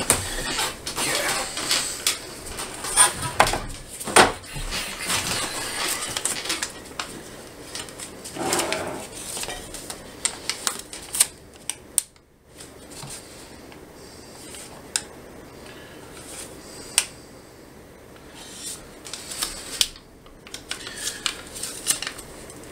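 Crackling and rustling of a sheet of 3M adhesive transfer tape and its paper liner as it is handled and smoothed onto an aluminum bed plate, with scattered clicks and taps. The handling is busy for the first ten seconds or so, then thins to occasional soft crackles.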